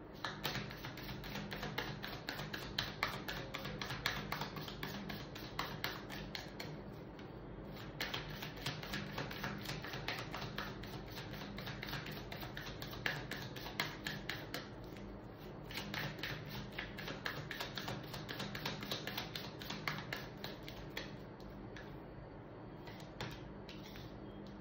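A tarot deck being shuffled by hand: a rapid, dense patter of cards clicking against each other, pausing briefly a few times.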